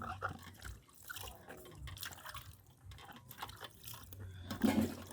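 Irregular splashing and dripping of water as eggplants are washed by hand, with a louder splash about four and a half seconds in.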